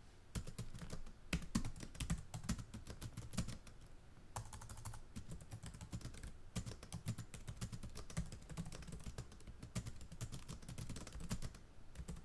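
Typing on a computer keyboard: a fast, uneven run of key clicks.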